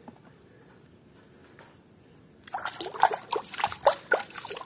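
A few faint clicks as plastic toys are handled. From about halfway in, water sloshes and splashes irregularly as a hand scrubs a plastic toy in a basin of water.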